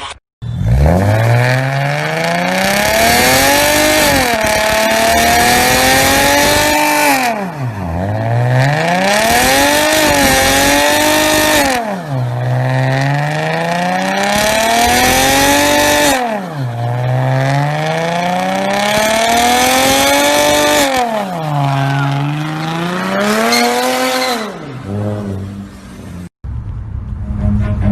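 A performance car's engine revving hard under acceleration, its note climbing and then dropping sharply at each gear change, five or so times in a row. Near the end it cuts to a steadier, lower engine note.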